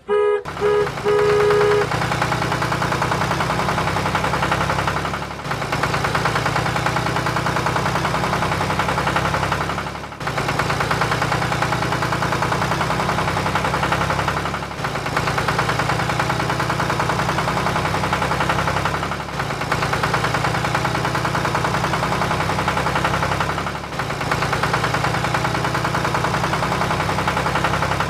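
Recorded engine sound effect: an engine idling with a rapid knocking chug, played as a loop that restarts with a short dip about every four and a half seconds. A couple of short beeps sound in the first two seconds.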